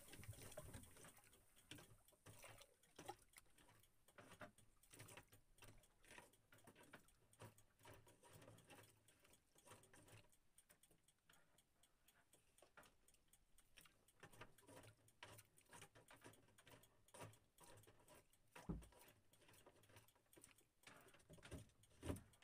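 Near silence with faint, irregular ticks and light knocks as anchor rope is paid out by hand over the side of a small wooden boat, with a couple of slightly louder knocks near the end.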